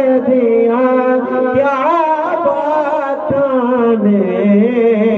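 A man's voice singing an Urdu Sufi devotional kalam into a microphone: long drawn-out notes with wavering ornaments, the pitch sinking lower near the end.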